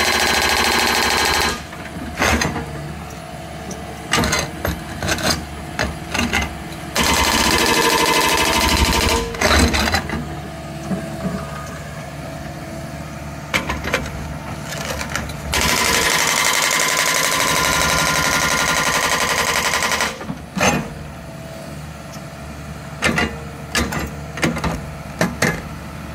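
JCB Pothole Pro's planer head grinding out asphalt in three long, loud stretches, at the start, about seven seconds in and about fifteen seconds in. Between them the machine keeps running more quietly, with uneven knocks and clatter.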